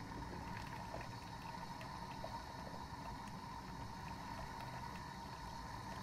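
Coffee maker running while it brews: a steady hum with a constant higher tone over a low rumble, and scattered faint ticks.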